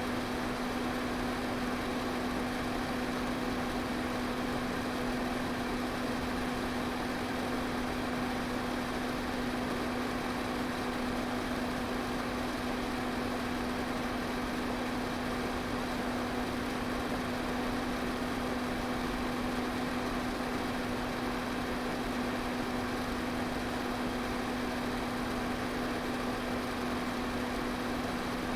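Electric fan running steadily: a continuous rush of air over a steady low motor hum.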